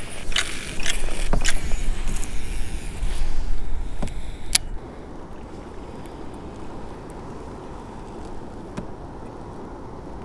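A cast from a kayak with a baitcasting rod and reel: rustling handling noise and line paying out, with several sharp clicks, the sharpest about four and a half seconds in. Then steady, softer water and wind noise.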